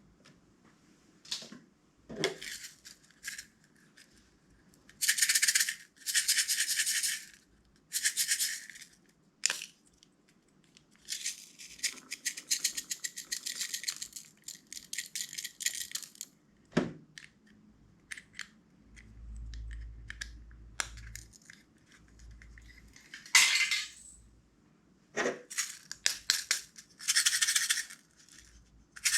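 Clear slime being handled and mixed, heard as repeated bursts of crackling and rattling that each last one to several seconds, with single taps and clicks between them.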